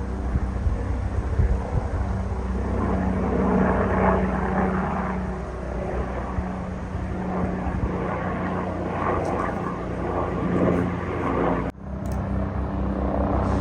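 Several helicopters flying, their rotors chopping steadily over a continuous engine drone, with a brief break in the sound about twelve seconds in.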